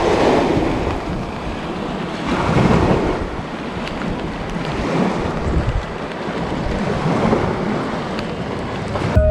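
Stormy sea surf washing on the shore under strong wind buffeting the microphone, the rush of noise swelling and easing every two to three seconds.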